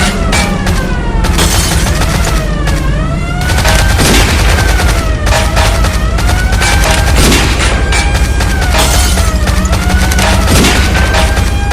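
Old-time car chase sound effect: a steady low engine rumble under repeated gunshots and volleys of gunfire, with siren tones wailing up and down.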